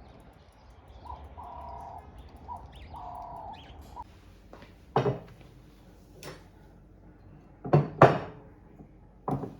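A dove cooing: two drawn-out low coos, each set between short notes, in the first few seconds. Then several sharp knocks and clatters of kitchen handling.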